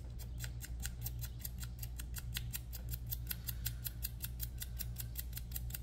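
A small chunk of sandpaper is rubbed back and forth by hand on a metal part, taking the finish off the metal. It makes even, rasping scrapes at about six strokes a second. A steady low hum runs underneath.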